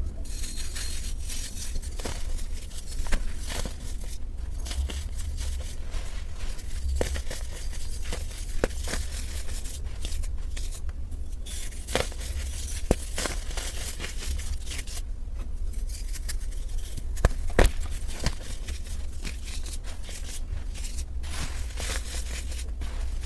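Dry, caked baking soda being crumbled and crushed: continuous fine crackling with sharp snaps now and then, a few louder ones around the middle and about three quarters through, over a low steady hum.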